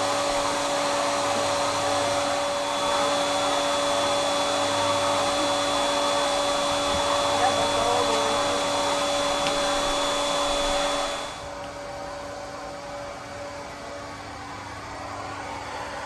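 Yiktol pet grooming vacuum running steadily, a whirring motor with a whine, as its suction brush head is worked through a German Shepherd's coat. About eleven seconds in the sound drops suddenly to a quieter, duller hum.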